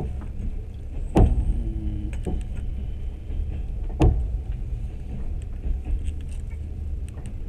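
Train running along the track with a steady low rumble, broken twice by a sharp knock with a short falling tail, about a second in and again about four seconds in.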